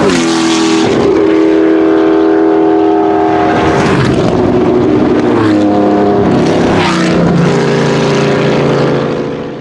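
The Porsche 908/03's 3-litre flat-eight racing engine passes close by at speed, its pitch dropping sharply as it goes past, then holding a steady note as it pulls away. About four seconds in a white Porsche 911 passes, and further engine notes drop in pitch as more cars go by before the sound fades near the end.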